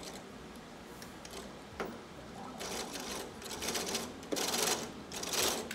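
Plastic toy gears meshing and rattling as they are turned by hand, in a few short bursts of clatter in the second half, after a single click.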